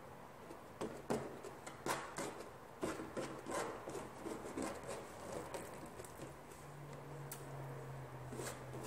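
Eating sounds from close up: fingers picking at rice and meat in a plastic bowl and food being chewed, heard as a run of short clicks, taps and rubs. A low steady hum starts about six seconds in.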